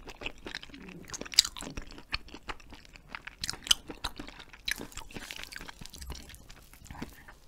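Close-miked chewing of a bite of hagfish-skin jelly: a steady run of irregular, sharp mouth clicks as the rubbery jelly is worked between the teeth.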